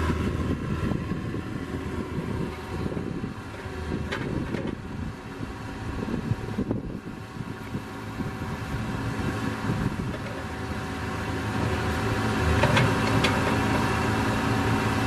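Excavator's diesel engine running while its hydraulic controls are worked, the engine's load rising and falling and growing louder in the last few seconds. A few sharp knocks are heard.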